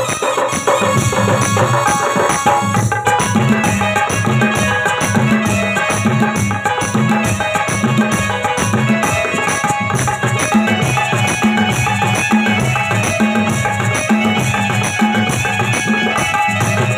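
Traditional folk entrance music for a stage play: melodic instruments over a steady, evenly repeating hand-drum beat.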